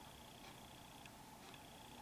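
Near silence: room tone with a faint steady high whine and faint ticks about twice a second.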